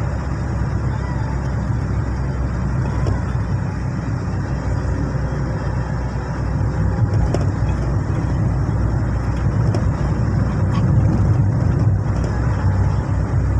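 Steady low rumble of a moving car's engine and road noise.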